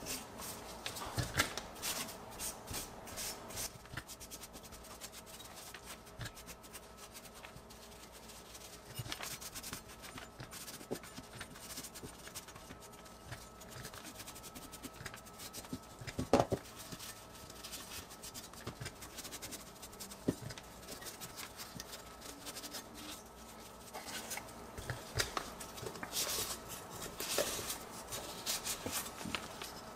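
Small stripped metal toy-truck parts being wiped by hand with a paper towel: scratchy rubbing and rustling strokes at the start and again near the end. A few light knocks as parts are set down on the padded bench, the loudest about halfway through.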